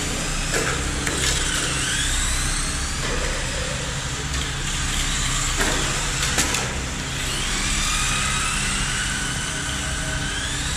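Several Tamiya radio-controlled cars lapping on concrete: the high whine of their electric motors and gears rising and falling as they speed up and brake, over tyre noise, with a few sharp knocks.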